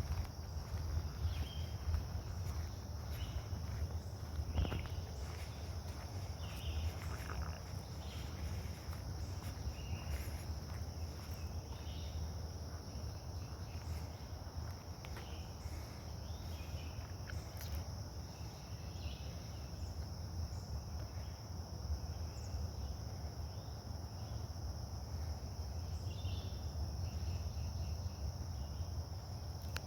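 A steady, high-pitched chorus of insects trilling, cricket-like, with scattered short chirps above it and a low rumble underneath.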